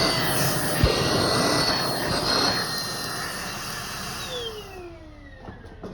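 Vacuum cleaner running with a steady whine, a knock about a second in, then switched off: the motor winds down with falling whine tones and fades out near the end.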